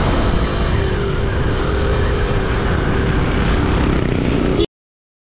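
Motorcycle running under way, a steady loud rumble that cuts off suddenly near the end.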